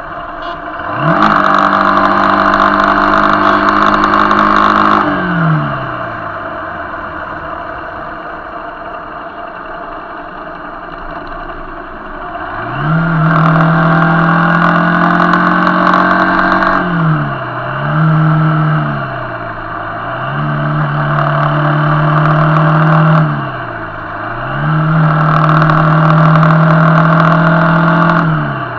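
Motorcycle engine heard close up, revving: its pitch rises quickly, holds steady for several seconds and falls away, four times, with two short blips of throttle in between, over steady road and tyre noise.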